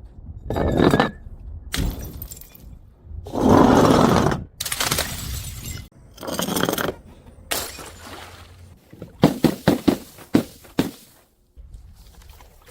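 Glass bottles smashing and shattering: about half a dozen separate crashes, the loudest and longest about four seconds in. Later comes a quick run of sharp knocks.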